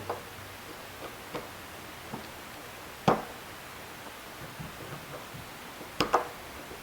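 Scattered small metal clicks and taps of a 2.5 mm Allen key working the saddle bolts on an electric guitar's tremolo bridge as they are loosened. The loudest click comes about three seconds in, and two close together near the end.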